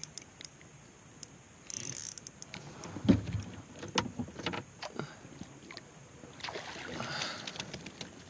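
Scattered light knocks and clicks on a fishing kayak, with a couple of brief splashy hisses, while a hooked trout is fought beside the boat; the sharpest knock comes about three seconds in.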